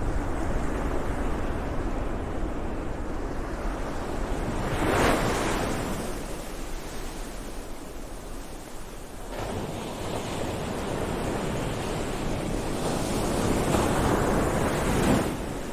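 Ocean waves washing in: a steady surf with two larger waves swelling and breaking, one about five seconds in and one near the end.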